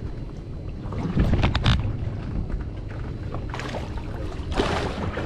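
Wind rumbling on the microphone over water moving against a small boat, with a hooked halibut splashing at the surface beside the boat in two bursts near the end; a short cluster of clicks sounds a little over a second in.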